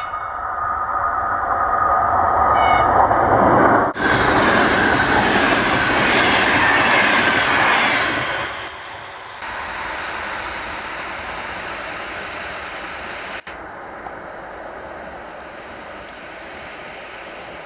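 ChS4 electric locomotive and its passenger coaches running past at speed: a dense rumble and hiss of wheels on rail with clickety-clack over the rail joints, loudest as the coaches go by. It drops off suddenly past the middle and carries on quieter as the train draws away.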